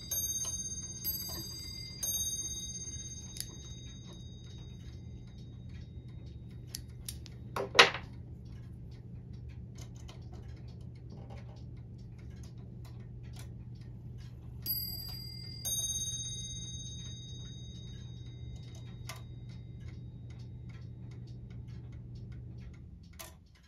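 Rack-and-snail bracket clock ticking and clicking as its minute hand is turned by hand, with a sharper knock about eight seconds in. Short runs of high ringing notes come near the start and again about fifteen seconds in.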